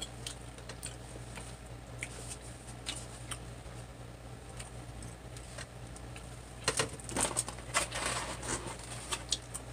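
Quiet eating sounds at a table: scattered soft clicks of chopsticks and chewing, busier for a couple of seconds near the end.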